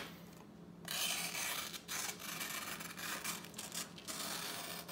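Sharp M390 knife blade slicing through a sheet of paper, a dry scraping hiss in a few long strokes starting about a second in.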